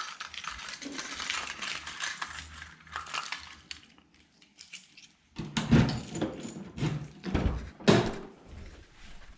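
A bunch of keys jingling and small metal objects clinking while someone searches for keys. Several louder knocks and thumps follow about halfway through, the sharpest near the end.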